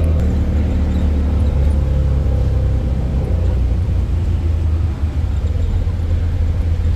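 A moving road vehicle's engine and road noise: a steady low rumble.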